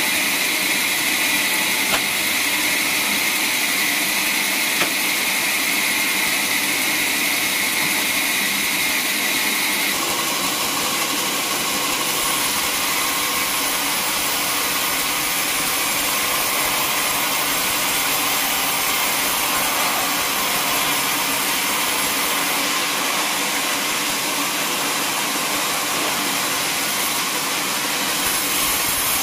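Band sawmill running with a steady machine noise. About ten seconds in the sound changes, and the band blade saws lengthwise through a teak log.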